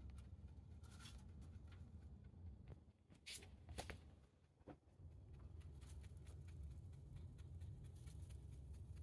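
Rabbit chewing and tugging dry hay at a hay rack: faint, scattered crunching and rustling clicks, the loudest a little over three seconds in.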